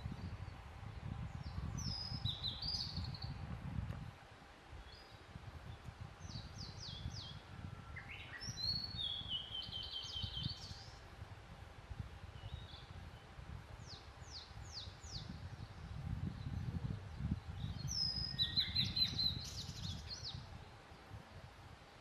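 Male blue-and-white flycatcher singing several song phrases a few seconds apart, each of high clear notes dropping into a rapid run of lower repeated notes. A low rumble sits under the song at the start and again near the end.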